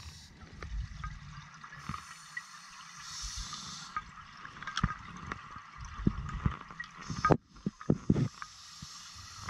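A scuba diver breathing through an open-circuit regulator underwater: hissing inhales, around 3 seconds in and again near the end, alternating with long exhales of gurgling, popping bubbles.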